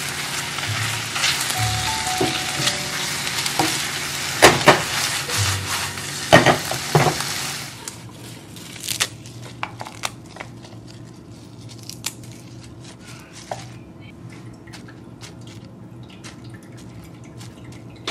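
Sauce sizzling in a frying pan as chikuwa rolls with quail eggs and tsukune are turned with tongs until the sauce cooks off, with a few sharp knocks of the tongs against the pan. The sizzling stops about eight seconds in, giving way to quiet rustles and light taps of lettuce being torn into a lunch box.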